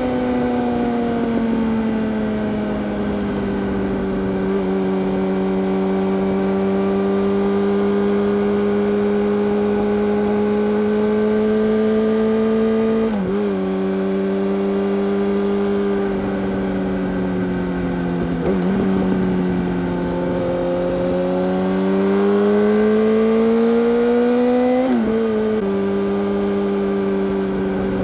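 2005 Yamaha YZF-R1's inline-four through a Yoshimura full-system exhaust, running under way with a steady note that sags a little, holds, then climbs. It dips briefly twice in the middle, and near the end a rising pull breaks off in a sudden drop in pitch.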